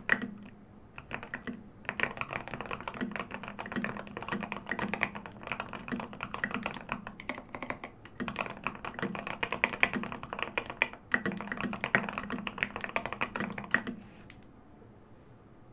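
Typing on a custom mechanical keyboard with lubed Gateron Ink Black linear switches, an aluminium plate and tall SA keycaps: quick, steady keystrokes with a few short pauses. The typing stops near the end.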